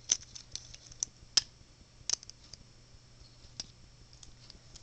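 A screwdriver driving a center-piece screw into a DIY Rubik's cube's plastic core, giving a handful of sharp, irregular small clicks.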